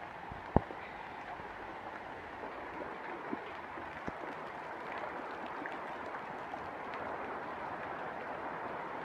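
Steady rain falling on garden foliage, with a single sharp knock about half a second in.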